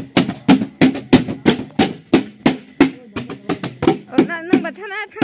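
A drum beaten in a fast, steady rhythm, about three or four sharp strokes a second, with a wavering high-pitched tone joining in about four seconds in.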